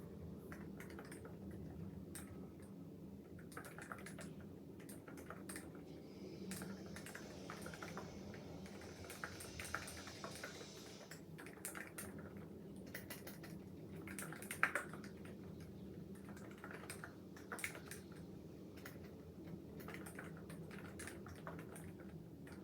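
Typing on a COX CF75 mechanical keyboard with orange switches: quick, irregular keystrokes with a few louder clacks past the middle, over a low steady hum.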